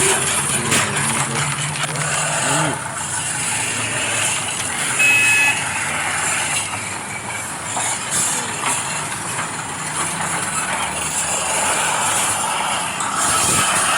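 Radio-controlled scale excavator and bulldozer working: steady mechanical running and scraping noise, with a low engine-like hum over the first few seconds and one short high beep about five seconds in.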